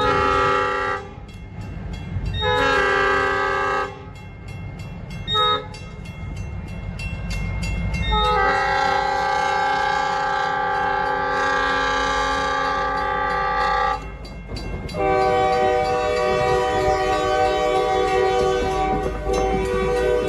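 Locomotive air horns, one a Nathan K5LA five-chime, sounding for a grade crossing: a blast ending about a second in, another long one, a short one, then a long held blast of about six seconds and another long blast near the end. A train's low rumble runs underneath.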